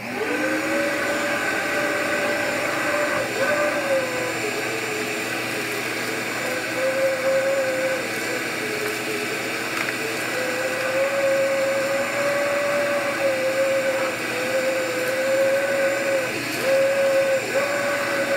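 Ridgid shop vac motor starting up and running, drawing air through a cyclone dust separator on a bucket as the wand sucks up a pile of sawdust. Its whine wavers and dips in pitch several times.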